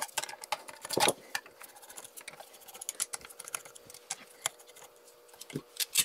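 Rapid, irregular small metallic clicks and scrapes of a screwdriver working the screws out of a steel lock housing and of the metal parts being handled, sped up.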